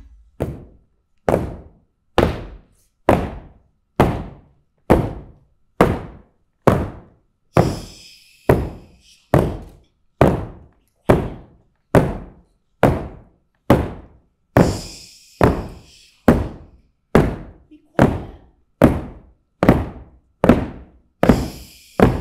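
Wooden walking sticks knocked on a stage floor in a steady beat, a little over one knock a second, each knock ringing in the hall. A short hiss sounds three times between the knocks.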